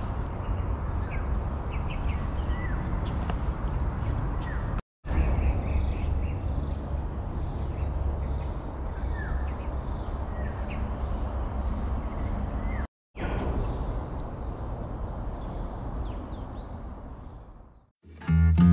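Outdoor ambience: a steady rushing noise, heaviest at the low end, with short bird calls now and then. It breaks off twice and fades out near the end.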